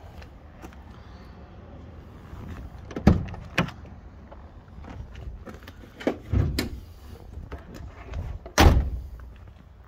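A handful of short knocks and thumps, spaced irregularly, the loudest near the end, over a low rumble.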